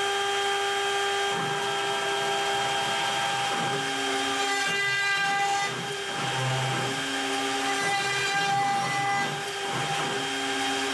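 CNC router spindle running at a steady high whine while its V-bit engraves quarter-inch plywood. Lower hums from the axis stepper motors come and go every few seconds as the gantry moves the bit.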